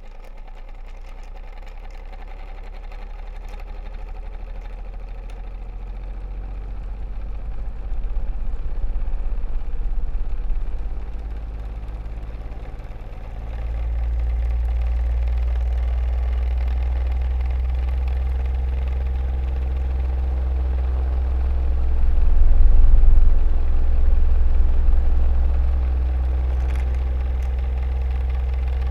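Electric fan running with a steady low hum and buzz. It grows louder over the first several seconds, steps up in loudness about halfway through, and swells briefly later on.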